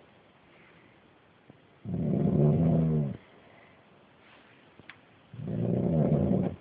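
A sleeping man snoring loudly: two long snores, about three and a half seconds apart.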